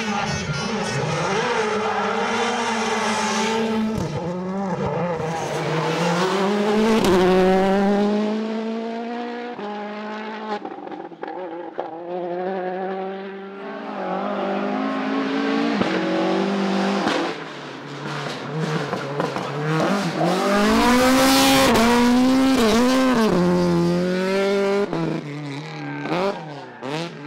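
Rally car engine revving hard, its pitch climbing and dropping repeatedly through gear changes and lifts, with brief drops in the sound around ten, seventeen and twenty-five seconds in. It is loudest a little past twenty seconds in.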